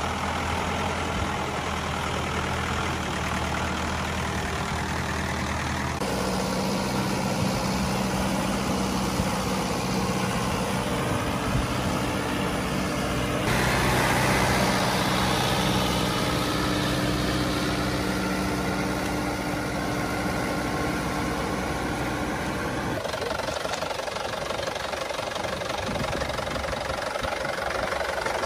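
Farm tractor's diesel engine running steadily under load in deep mud, with the engine note changing abruptly several times.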